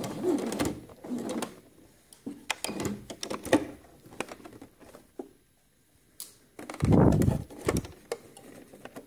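Domestic sewing machine stitching in short, stop-start runs along a shirt collar edge, with small clicks and knocks of the fabric being handled in between; the longest and loudest run of stitching comes about seven seconds in.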